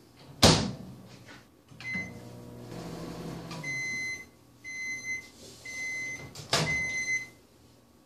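Oster microwave oven: a loud door clunk, a short keypad beep, then the oven humming briefly. It finishes with four long end-of-cycle beeps about a second apart, and another door clunk comes during the last beep.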